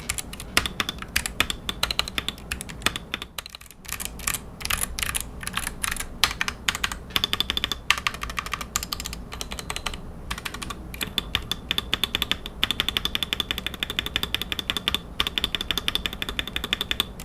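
Rapid typing on a Gamakay MK68 keyboard with its stock, unmodded optical Gateron Yellow linear switches: a dense run of key clacks, with a brief pause about three and a half seconds in.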